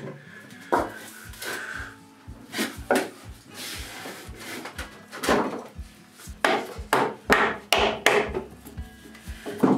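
Oak pieces rubbing and knocking together as a stretcher is worked into a leg, followed by a quick series of scraping hand-tool strokes on the oak, about three a second, that start a little past halfway and are the loudest sounds.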